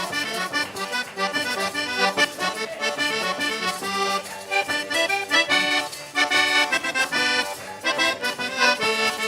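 Background music: an accordion playing a quick Italian folk tune, instrumental with no singing.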